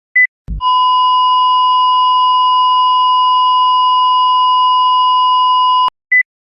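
Heart monitor sound effect: a short high beep, then a low thump and a long steady flatline tone that holds for about five seconds and cuts off abruptly, followed by another short beep. The flatline is the monitor's sign of asystole.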